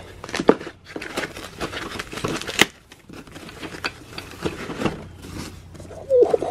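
Foam packing sheet being handled and unwrapped by hand: a run of rustling and crinkling with short crackles and a few sharp clicks, the sharpest about half a second in and near the middle.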